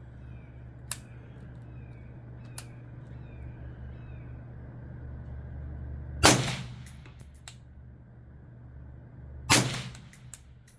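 Two shots from a suppressed 5.56 AR-15 rifle with a B&T VERS36 titanium suppressor, about three seconds apart in the second half, each a sharp crack with a short echo. Two faint sharp clicks come earlier.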